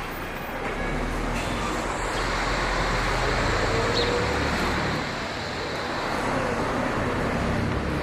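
Steady background road traffic noise, swelling about halfway through and easing off again.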